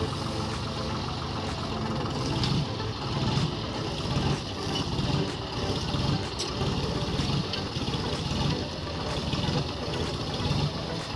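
John Deere tractor's diesel engine running steadily under load while it pulls a rear-mounted tine cultivator through dry soil.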